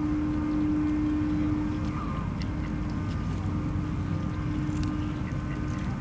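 Mallard ducks quacking now and then over a steady low hum and rumble.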